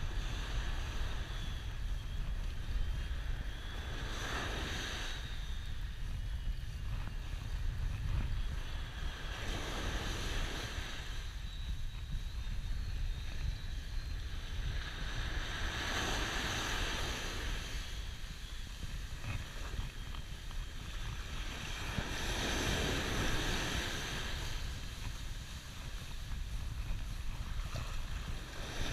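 Sea waves breaking and washing up the beach in surges every five or six seconds, over a steady low rumble of wind on the microphone.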